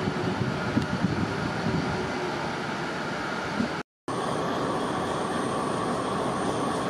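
Standing Japanese diesel railcars running at a station platform: a steady engine rumble with a faint whine. The sound drops out for a moment about four seconds in, then carries on steadily.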